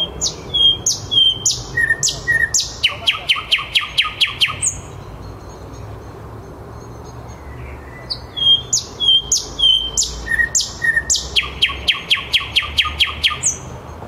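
Thrush nightingale singing two near-identical phrases. Each opens with a few separate whistled notes, breaks into a fast run of loud repeated notes at about six a second, and ends on a single higher note. The second phrase begins about eight seconds in.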